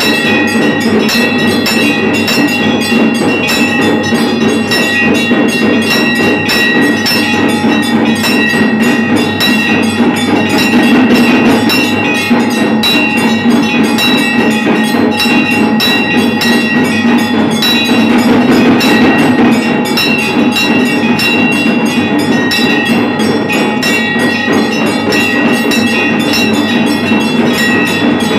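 Bells rung rapidly and without a break, as at a Shiva shrine's aarti, with clattering percussion: a dense run of fast strikes under a steady ringing tone.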